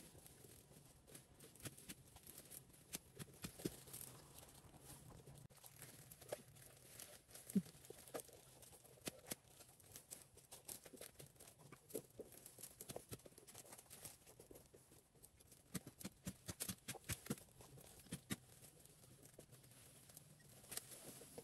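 Faint, irregular clicks, taps and rustling, thickest about three quarters of the way through.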